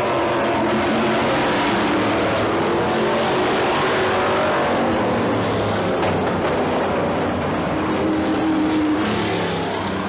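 A pack of dirt-track modified race cars running at racing speed, their engines blending into one loud, steady noise. Several engine notes rise and fall as the cars go through the turn and pass.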